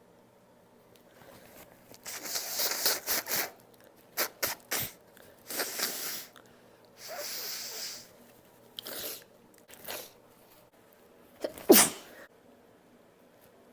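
A person sneezing unstifled, not holding the sneezes back: several noisy sneezes in a row with sharp breaths between. The last one, near the end, is voiced and the loudest.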